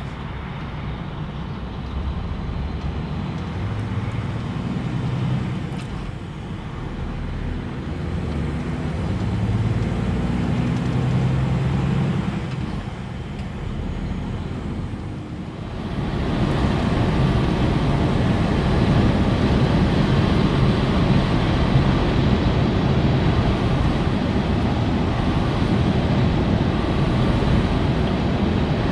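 Steady engine drone and road noise inside the cab of a DAF XG+ truck driving on a motorway. About halfway through it jumps abruptly louder, with more hiss, and then holds steady.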